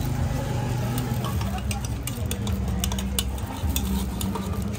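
Liquid poured from a small measuring cup into a glass blender jar, with many light clinks and ticks, over a steady low hum.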